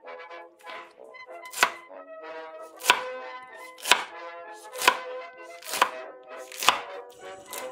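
Kitchen knife chopping green chillies on a marble board: six sharp chops about a second apart, over background music.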